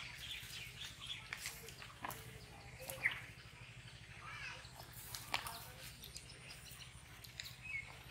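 Birds chirping now and then in short high calls, the clearest about three seconds in, over scattered light clicks and rustles of people moving and settling on a grassy bank.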